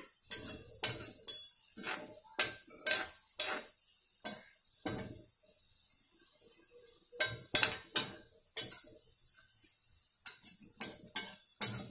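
A slotted metal spoon clinks and knocks irregularly against a metal kadai while stirring the hot oil, with a short lull about halfway through. Under the knocks, oil sizzles steadily around balls of kala jamun dough deep-frying in it.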